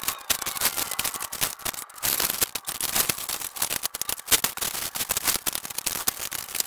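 Rapid, irregular metallic clicking, clanking and scraping as transmission cooler lines are bent and worked out from under the vehicle.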